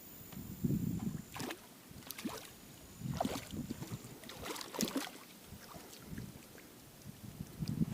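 Irregular knocks, clatter and low thumps of gear being handled aboard a small fishing boat.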